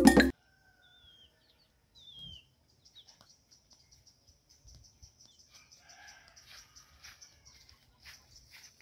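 Background music cuts off at the start, then faint farmyard sounds: hens clucking and a few small birds chirping, with a thin steady high-pitched drone through the second half.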